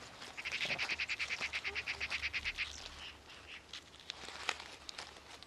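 Forest ambience: a rapid, high chirping trill of about a dozen pulses a second lasts a little over two seconds. It then gives way to scattered light clicks and crackles.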